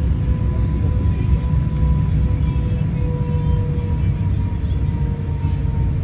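Inside the cabin of an Airbus A350-900 on the ground: a steady low rumble from taxiing, with the Rolls-Royce Trent XWB engines' whine held in two steady tones at idle thrust.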